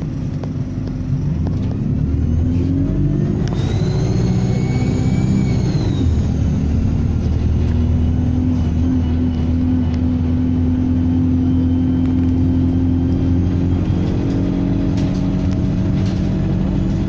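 Diesel bus engine pulling under load with its turbocharger whistling: a high whine rises and falls back about four seconds in, then the engine runs on steadily with a fainter whistle.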